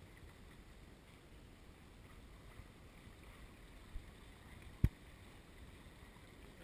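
Sailboat's wake rushing and hissing past the stern with wind on the microphone, a faint steady noise. A sharp click sounds once about five seconds in, with a softer one just before it.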